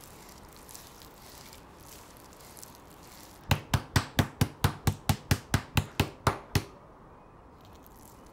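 Slices of raw pork neck being pounded on a bamboo chopping board to tenderize them: about fourteen sharp, even blows at about four a second, starting about three and a half seconds in and stopping after about three seconds.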